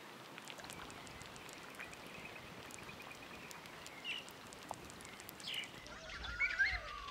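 Faint outdoor ambience: a steady hiss with scattered small clicks and a few brief bird chirps. Near the end, louder warbling calls start.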